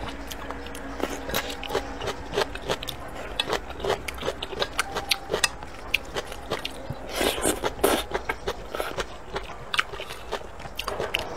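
Close-up eating sounds: chewing a mouthful of noodles and chicken with many short wet mouth clicks, and chopsticks scraping and tapping in a stainless steel pan.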